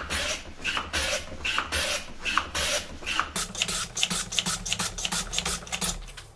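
Hand plane run on its side along a shooting board, planing the edge of a wooden piece in repeated rasping strokes. The strokes come quicker and shorter from about three seconds in.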